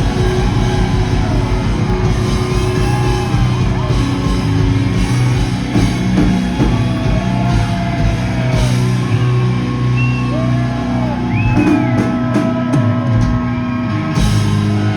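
Live hard rock band playing loudly: lead lines that slide up and down in pitch over steady bass and drums, with a quick run of sharp drum or cymbal hits near the end.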